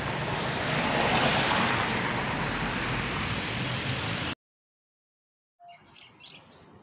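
A loud, steady rushing noise that cuts off abruptly about four seconds in, followed by a second of silence and then faint outdoor ambience with birds chirping.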